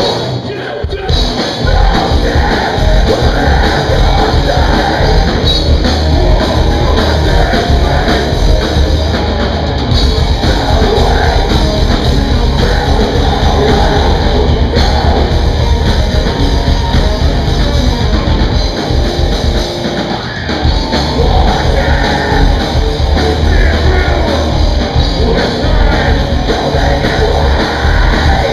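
Live heavy metal band playing loudly, with singing, and a brief break about a second in.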